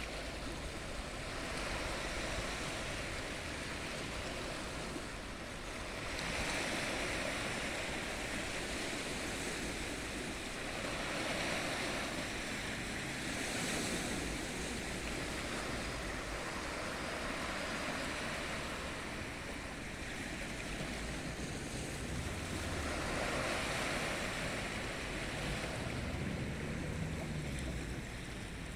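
Ocean waves breaking and washing in, a steady rush that swells and fades every few seconds as each wave comes in.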